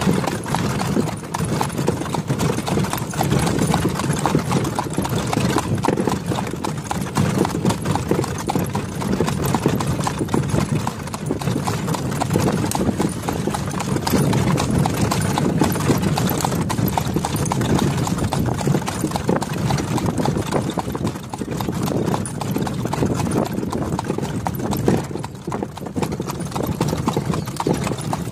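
A horse's hooves clip-clopping steadily on a paved road as it pulls a cart.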